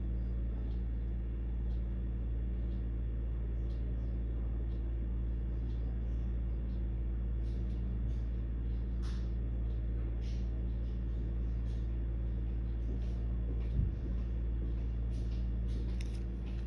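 Steady low electrical hum with faint scattered clicks, and a soft thump about fourteen seconds in.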